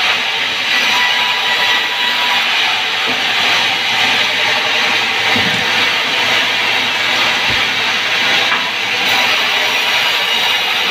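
Vertical band sawmill ripping lengthwise through a log: a loud, steady sawing noise, with a couple of dull knocks around the middle.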